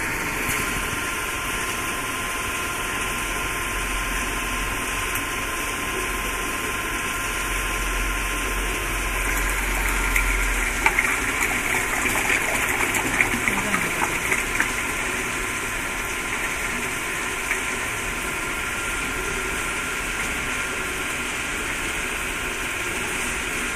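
Paint roller mill running steadily under its electric motor, a constant hum and rolling noise. A few light knocks and clicks come about halfway through.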